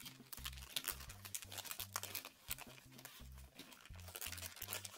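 Clear plastic bag crinkling in the hands as kinetic sand is squeezed out of it, many short irregular crackles. Under it runs Latin-style background music with a steady bass line.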